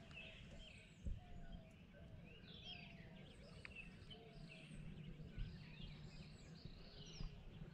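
Faint chorus of several birds chirping and calling over a low steady rumble, with one short knock about a second in.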